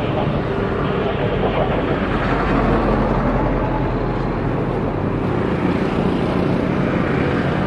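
Twin-engine jet airliner climbing out after takeoff: a steady engine noise with a deep rumble.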